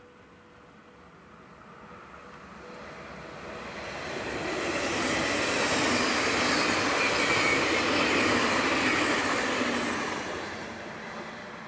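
A yellow NS double-deck electric passenger train passing close by at speed: the rushing noise of wheels on rail swells as it approaches, stays loud for about five seconds while the carriages go by, then dies away as it leaves.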